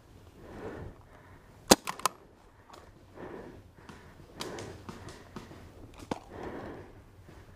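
Paintball fire in the woods: one loud sharp crack just under two seconds in, followed quickly by two fainter cracks, over soft rustling of movement in dry leaves.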